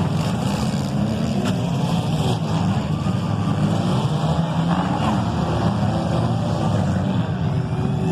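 Compact demolition derby cars' engines running and revving together, a loud, dense rumble that holds steady.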